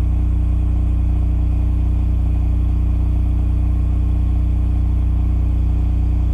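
Cummins RS-20A generator running steadily under load at 3,600 RPM, heard from 7 meters: an even, unchanging engine hum.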